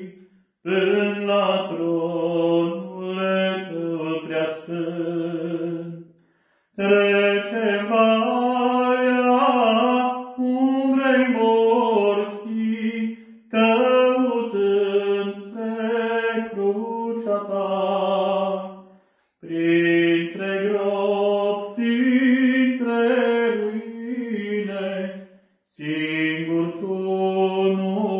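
An Orthodox priest singing a church song solo and unaccompanied. A single man's voice holds long sung phrases, broken by short pauses about every six seconds.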